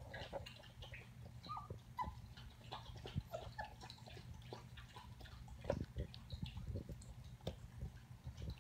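A young puppy making short, soft whimpers and squeaks, with small clicks and scuffs as it moves about.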